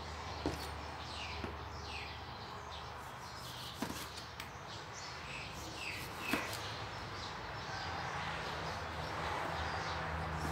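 A kitchen knife cutting through a tomato and knocking on a plastic cutting board a few times, while a bird calls over and over in short, high, downward-sliding notes. A low steady hum runs underneath.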